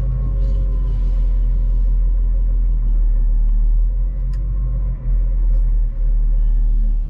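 Diesel engine of a Volvo L60E wheel loader running steadily under load, heard from inside the cab as a loud low drone with a faint steady whine above it, as the machine drives carrying steel beams on its pallet forks. The level dips briefly twice near the end, and there is a small click about four seconds in.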